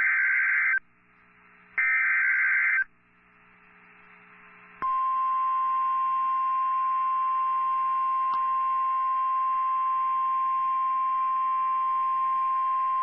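NOAA Weather Radio emergency alert: two screechy bursts of SAME digital header data, about a second each, then after a short pause the steady single-pitch warning alarm tone starts and holds. The tones herald a warning broadcast about to follow.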